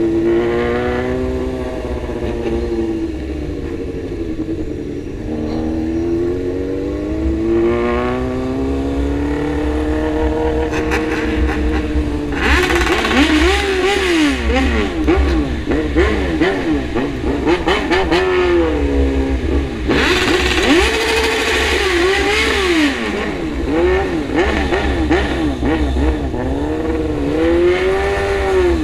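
Motorcycle engine on the move, its pitch rising and falling slowly through the gears, then from about twelve seconds in revved again and again in quick, loud blips with a harsher exhaust note.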